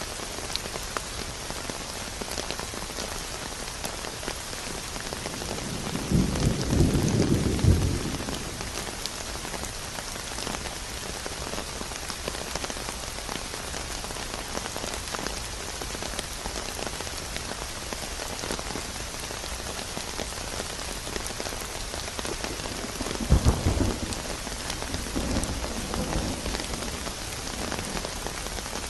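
Steady heavy rain falling on a surface, with distant thunder rumbling twice, once about six seconds in and again, longer, past the twenty-second mark.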